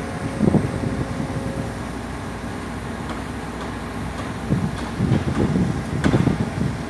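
Case CX210B excavator's diesel engine running steadily, with louder rumbling surges at about half a second and over the last two seconds, and one sharp knock about six seconds in.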